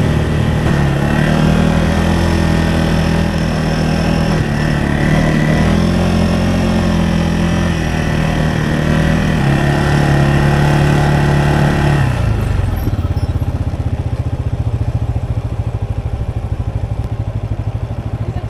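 Side-by-side UTV engine running under way, its pitch stepping up and down with the throttle. About twelve seconds in it drops to a quieter, even idle.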